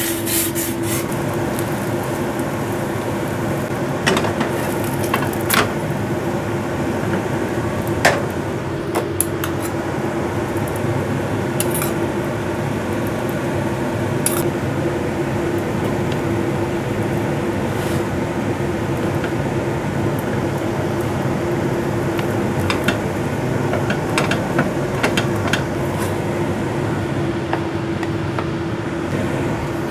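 A steady kitchen hum, one constant tone over even noise, with a few light clinks and taps of utensils against cookware.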